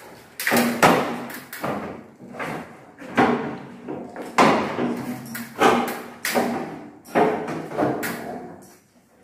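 Repeated knocks on an aluminium window frame as it is worked into place, about one every half second to second and irregular, each ringing briefly.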